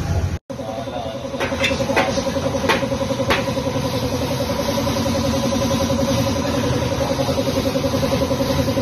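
A motor runs steadily with a fast, even, pulsing hum. A few sharp metal clicks fall in the first few seconds as the alloy wheel is clamped onto the tyre-changer turntable.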